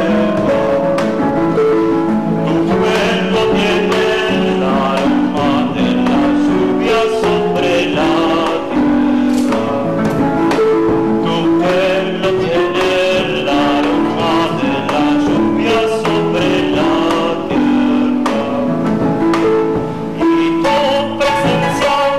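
Harp music with an Argentine bombo legüero drum beating a steady rhythm, and a man singing along.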